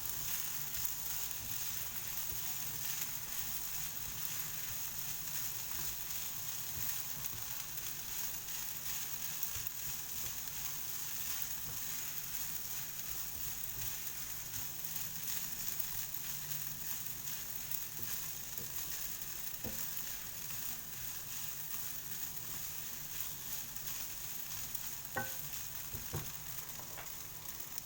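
Fried rice with Chinese leek sizzling in a hot pan as it is stirred and mixed: a steady frying hiss with scattered light ticks, and a sharper click or two near the end.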